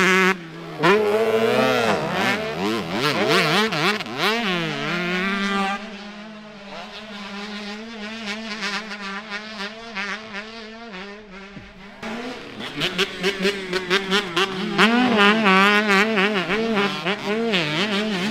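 Two motocross bikes, a 125 and a small youth bike, revving hard with the throttle opened and chopped again and again, their pitch rising and falling quickly over the jumps. The engines fade about six seconds in and come back louder about twelve seconds in.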